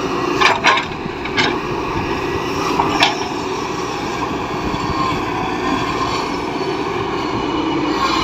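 Heavy construction machine's engine running steadily, with several sharp clanks in the first three seconds.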